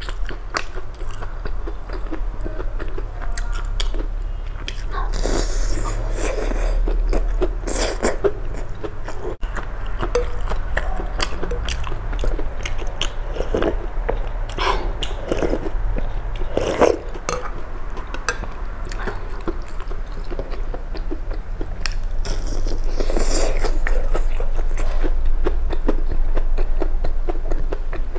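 Close-miked eating: crunchy bites into a deep-fried breaded skewer and chewing, with many short crackly crunches and mouth clicks over a low steady hum.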